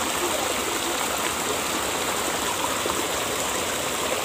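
Shallow river water flowing steadily over rocks in a small riffle.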